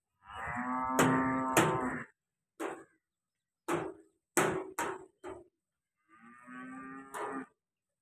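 A bovine mooing twice: one long moo in the first two seconds and a shorter one near the end. A few brief sharp sounds fall between the two calls.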